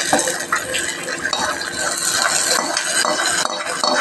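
Hot oil tempering of fried shallots, garlic and curry leaves scraped from a pan into a pot of mashed greens, with a metal spoon scraping and clinking on the pan and a steady sizzling hiss as the hot oil meets the wet greens.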